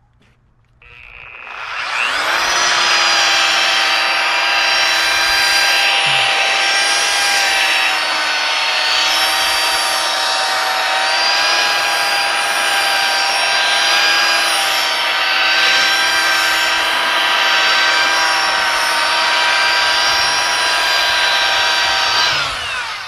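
Corded belt sander starting up about a second in, its pitch rising to a steady whine, then running steadily as it sands a wooden board, and winding down just before the end.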